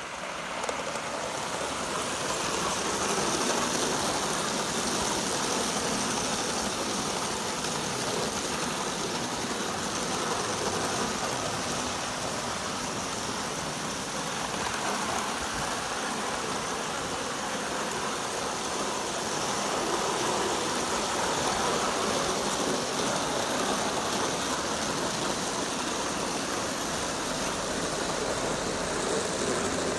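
Aster LNER B1 gauge 1 live steam locomotive running fast with a passenger train: a steady rushing rumble of wheels on the track and steam, swelling in the first couple of seconds and then holding even.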